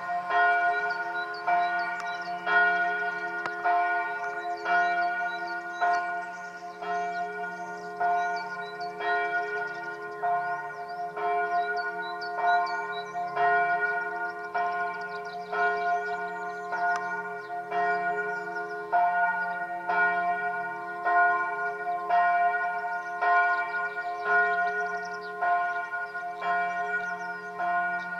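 The bells of Benediktbeuern's monastery church ringing together in a full peal. Several bells of different pitch strike in a steady, overlapping run, so their tones hang on continuously.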